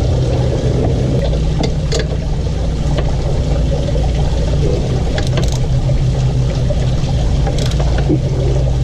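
Steady low mechanical drone of background noise, with a few light clicks from a hand tool working a bolt on the car's underside.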